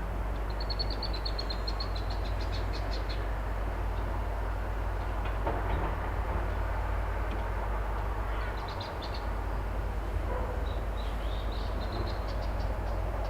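Steady low rumble of an excavator's engine working down the road, with small birds chirping in quick high trills over it, one series about half a second in and more in the second half.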